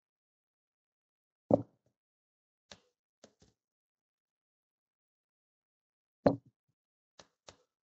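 Handling knocks of metal parts and tools on a towel-covered workbench: two sharper knocks, about a second and a half in and again near the end, with a few faint clicks in between.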